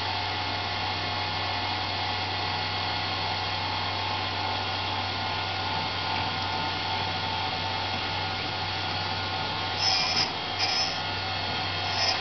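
Sanford SG48 surface grinder running: its motor and wheel spindle give a steady hum with a high whine. About ten seconds in come a few short, bright hissing scrapes as the wheel begins to touch the cold-rolled steel block.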